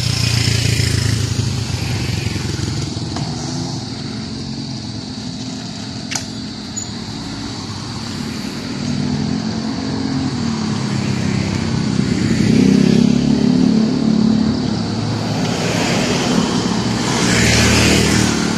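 Road traffic: motorcycle and other vehicle engines running close by, their pitch drifting up and down, growing louder about two-thirds of the way through and again near the end. A thin, steady high whine runs underneath.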